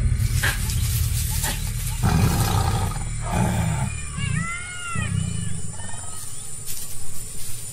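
Tiger growling while gripping a deer by the throat at the kill. A few short, arching high-pitched calls come about halfway through.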